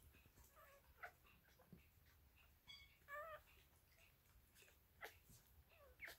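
Faint, brief high squeaks and whimpers of one-day-old dachshund puppies nursing, the clearest a short wavering squeak about three seconds in, with a few soft clicks.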